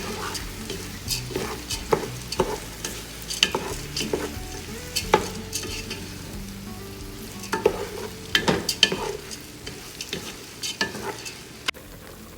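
Freshly washed rice frying and sizzling in hot oil with browned onions, as a spoon stirs it and scrapes against the pot, giving irregular clinks and scrapes over the steady sizzle.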